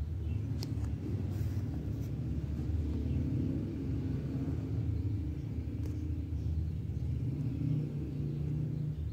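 Steady low background rumble, with a few faint short clicks about half a second and two seconds in.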